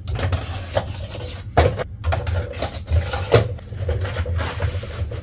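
Plastic animatronic clown feet being handled and fitted onto a metal frame stand: rubbing and scraping with several knocks, the sharpest about a second and a half in and again at about three and a half seconds.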